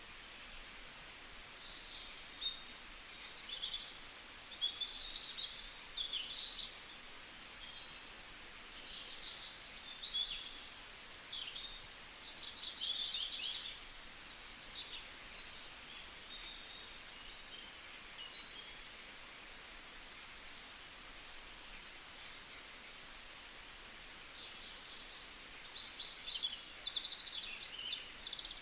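Several small birds chirping and calling over a steady background hiss, with short whistled notes and quick trills throughout.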